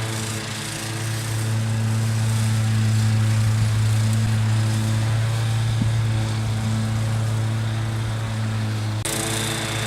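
Wolf-Garten ride-on lawn mower's engine running steadily with a low hum. The sound turns abruptly brighter about nine seconds in.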